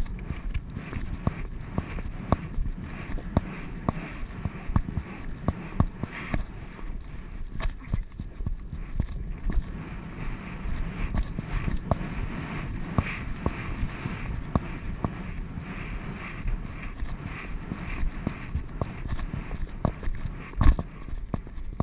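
Hoofbeats of a ridden horse on soft, churned ground, heard from the saddle: a dense run of dull thuds and knocks over a low rumble of wind on the camera microphone, with one louder knock near the end.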